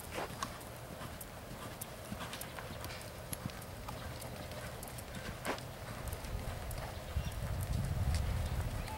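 Hoofbeats of a ridden horse moving on sand footing, heard as scattered soft ticks. A low rumble builds up over the last few seconds.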